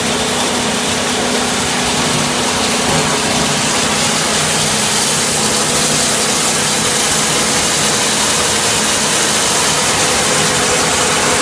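Pipe-recycling crusher and belt conveyor running under load: a loud, steady machine noise with a constant hum and no letup.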